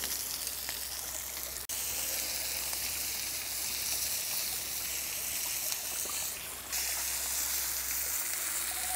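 Whole akule (big-eye scad) sizzling as it fries in coconut oil in a cast-iron skillet: a steady hiss that cuts out for a moment about two seconds in.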